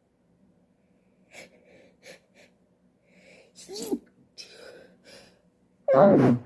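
A woman sneezing in a fit: short catching breaths build up to a smaller sneeze, then a few more quick breaths and a loud, full sneeze near the end.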